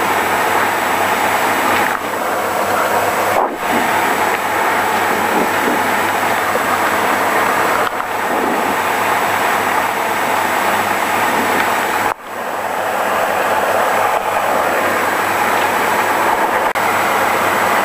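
Single-engine light aircraft's piston engine running steadily at idle, heard from inside the cockpit as a dense, even drone, with brief sharp dips about three and a half and twelve seconds in.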